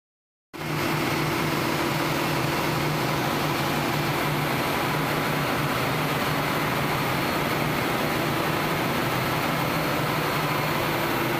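Steady din of running machinery in a ship's engine room: loud even noise with a constant low hum beneath it. It cuts in abruptly about half a second in.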